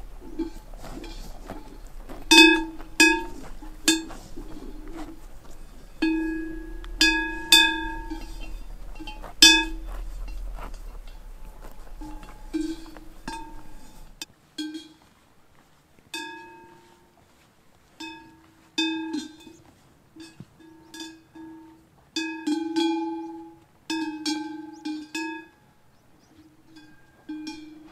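Large cowbells on grazing cows clanking as the animals move their heads: irregular single strikes and quick clusters of two or three, each ringing briefly at a low pitch with bright overtones.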